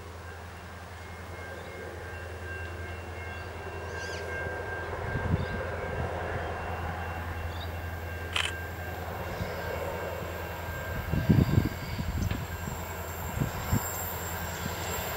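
Distant diesel freight train approaching: a steady low drone that grows slowly louder, with a few short low thumps from about five seconds in.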